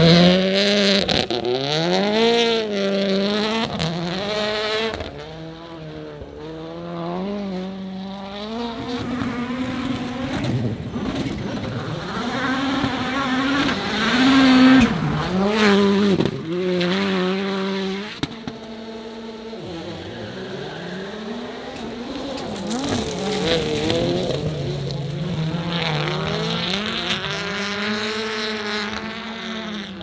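Rallycross supercars' turbocharged engines revving hard on a dirt circuit. The pitch climbs and drops again and again as the cars accelerate, shift and pass, with a few short sharp cracks among the revs.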